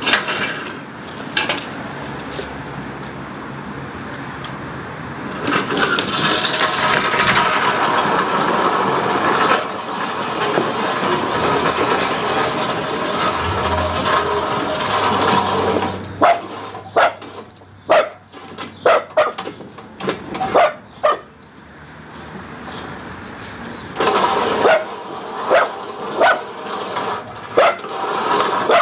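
Lawnmower running steadily, with a dog barking at it in short, sharp bursts: a run of barks starting just past halfway and another near the end.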